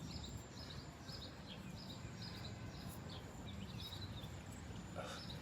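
A small bird chirping repeatedly, about two short high chirps a second, over a low steady background noise.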